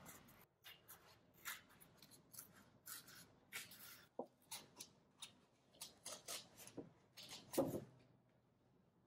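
Heavy 140 lb cold-press Arches watercolour paper torn by hand along a guideline: a run of faint, short ripping strokes, a few a second, stopping about a second before the end.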